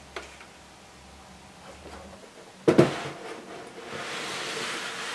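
A LEGO building being handled and set down on a tabletop: a few light clicks, then a sharp double knock nearly three seconds in as the plastic baseplate meets the table, followed by a soft rustle.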